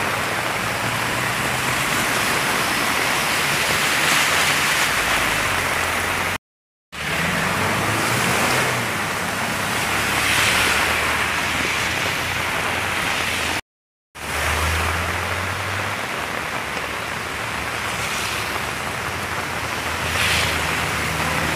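Heavy rain and rushing water as cars and a scooter drive through a flooded road, their tyres throwing up splashing wakes that swell and fade, with engines running low underneath. The sound cuts out briefly twice.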